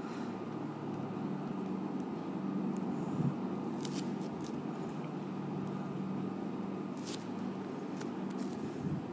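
Steady low background hum and noise, with a few faint clicks.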